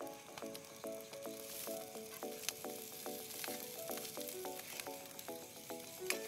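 Rice frying and sizzling in a wok on a small camping stove while a spatula stirs and scrapes it, with a few sharp clicks.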